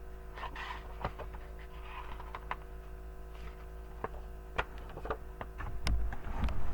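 Soft paper rustles and light clicks of a picture book being handled and its pages turned, over a faint steady hum, with a low rumble about six seconds in.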